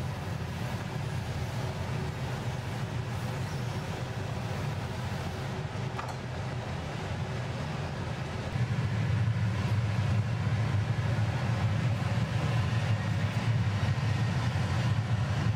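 Steady low roar of glass-studio machinery, a constant rumbling hum that grows louder about halfway through.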